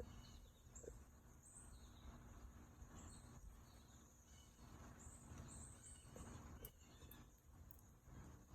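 Faint outdoor ambience: a low rumble with scattered short, high-pitched chirps every second or two.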